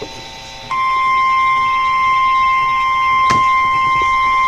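NOAA Weather Radio warning alarm tone, the single steady 1050 Hz tone that signals a new warning broadcast. It starts under a second in and holds at one pitch without a break.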